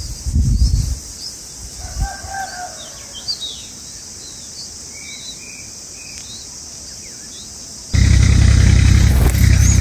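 Small birds chirping in short, high notes over a steady high buzz, with a few low thumps at the start. About eight seconds in, a loud, steady low rumble starts suddenly and is the loudest sound.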